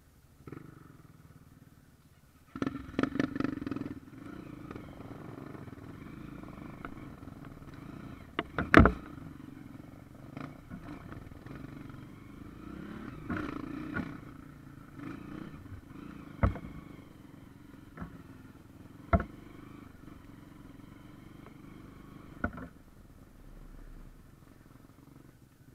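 Dirt bike engine running at low revs on a steep trail, picking up about two and a half seconds in. Sharp knocks and clatters break through it as the bike jolts over roots, the loudest about nine seconds in, with single knocks every few seconds after.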